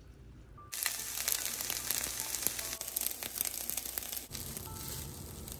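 Fried rice with egg and onion sizzling in a frying pan, a dense crackling hiss that starts suddenly under a second in.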